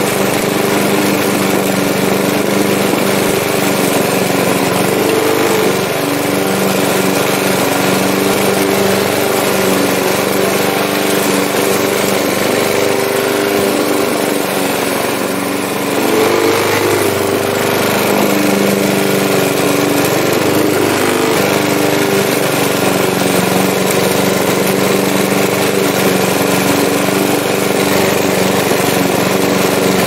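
Lawn mower's small engine running steadily. Its pitch sags briefly about halfway through and then picks back up.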